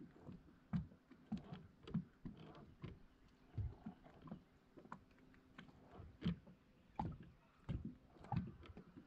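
Water lapping against the hull of a small fishing boat, heard as irregular soft slaps and knocks about one or two a second.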